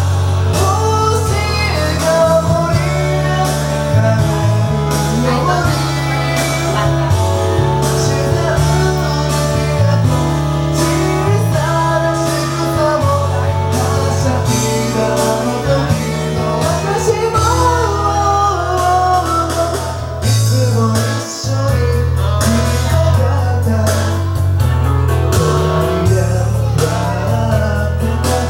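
A man singing a Japanese song into a karaoke microphone over a karaoke backing track with bass, drums and guitar.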